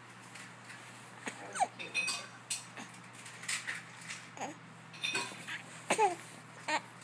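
Repeated small hiccups at irregular intervals, short sharp clicks, some carrying a brief squeaky falling voice.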